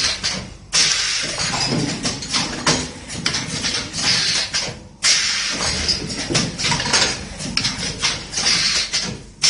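Automatic stainless-steel apple peeling and cutting machine running: a steady hiss with clatter and knocks. The sound dips briefly and starts again abruptly about every four and a half seconds.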